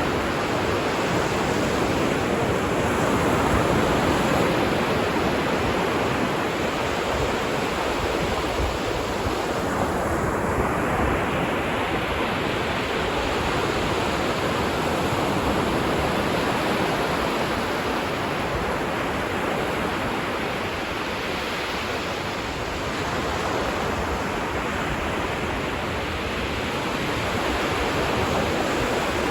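Ocean surf on a beach: a steady rush of waves washing in, swelling and easing slowly in loudness.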